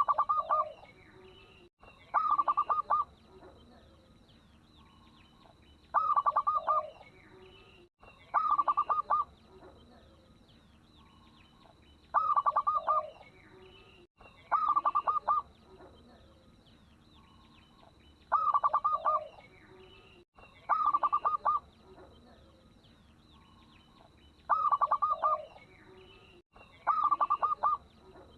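Zebra dove (local perkutut) cooing: short phrases of quick staccato coos, each about a second long and ending on a lower note. The phrases come in pairs about two seconds apart, the pairs repeating about every six seconds, with faint chirping of small birds behind.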